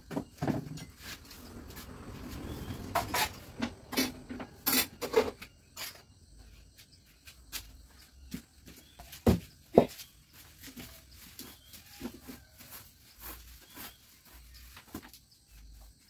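Scattered knocks, clicks and clinks of dishes and household items being handled in a kitchen, with a rustling scrape in the first few seconds. Two sharp knocks about nine and ten seconds in are the loudest.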